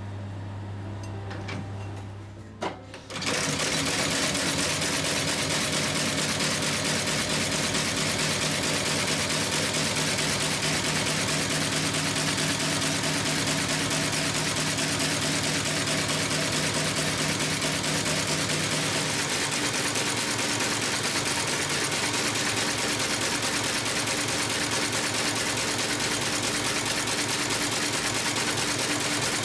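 Goodyear outsole stitching machine sewing a new leather sole to a shoe's welt. After a low motor hum and a couple of clicks, it starts stitching about three seconds in and runs steadily with a rapid, dense clatter of needle strokes.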